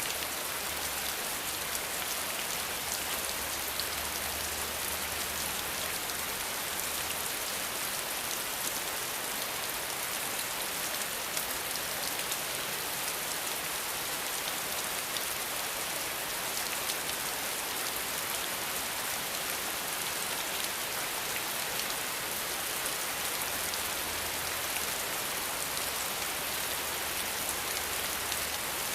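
Steady rain falling, a dense even hiss of many drops pattering on surfaces with no pause or change.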